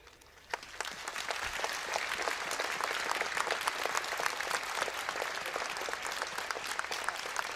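Large crowd applauding. The clapping starts about half a second in, swells over the next second or so, then holds steady.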